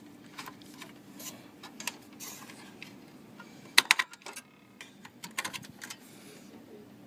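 Light clicks and taps from a memory module being handled inside an open desktop PC, with the loudest cluster about four seconds in.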